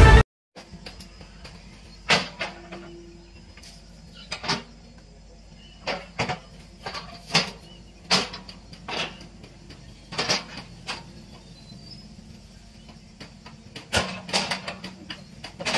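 Hitachi EX120 excavator working at a distance: its diesel engine gives a low steady hum, under irregular sharp knocks and cracks about once a second.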